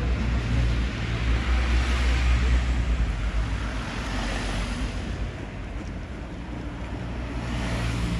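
Motor traffic going by: a low engine rumble with a tyre hiss that swells and fades a couple of times, the rumble heaviest in the first three seconds and again near the end.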